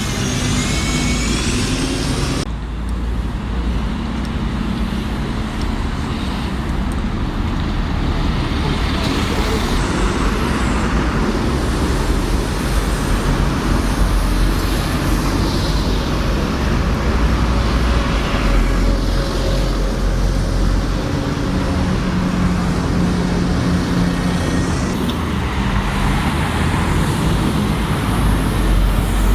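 City street traffic: road vehicles, buses among them, running past, with a low engine rumble and tyre noise. The sound changes abruptly about two seconds in.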